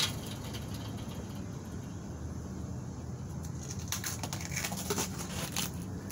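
Metal hive tool prying and scraping at the wooden top of a bee nuc box, a run of sharp clicks and scrapes from about four seconds in, over a steady low hum.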